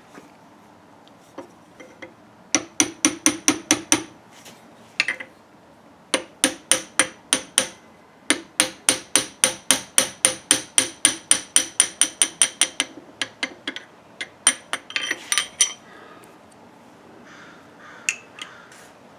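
A hammer tapping rapidly on steel parts, about five strikes a second in several runs, each strike ringing with a metallic tone.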